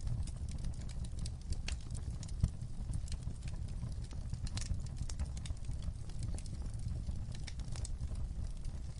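Fire crackling: irregular sharp pops and snaps over a steady low rumble, with one louder pop about two and a half seconds in.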